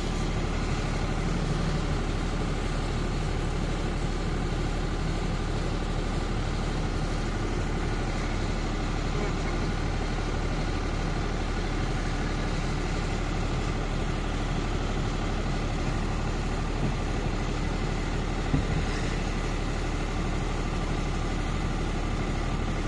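Generator engine running steadily, a constant mechanical drone with a low hum. A single short knock sounds near the end.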